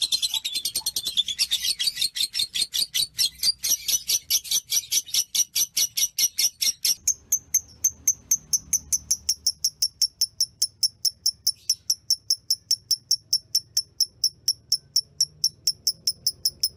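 Fischer's lovebird 'ngekek': a long, unbroken string of rapid, high chattering notes at about five to six a second. This is the extended calling of a konslet lovebird. About seven seconds in, the notes turn cleaner, higher and more evenly spaced.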